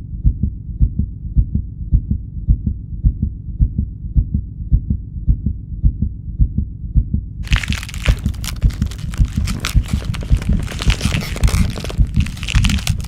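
Transformation-growth sound effect: a steady, thudding heartbeat, joined about halfway through by a dense crackling, crunching noise over the beats.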